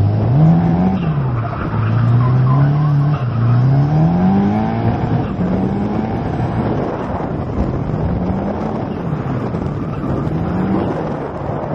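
Drift car's engine revving hard, its pitch climbing and falling again and again with the throttle, over the rush of tyres sliding and squealing through a drift, heard from the car's roof.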